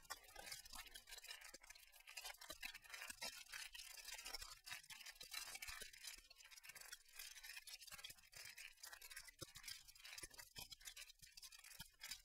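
Faint, irregular crackling and clicking over a soft hiss, close to silence.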